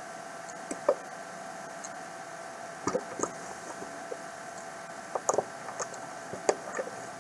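Scattered light clicks and taps of a heated screwdriver tip working against a plastic bill-acceptor cashbox as it melts a starter hole for a screw, with a few quick clusters of clicks. A steady faint hum runs underneath.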